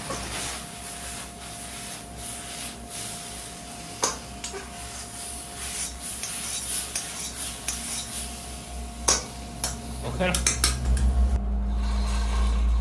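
Metal cookware clinking and scraping, with scattered sharp knocks. A low rumble swells in near the end.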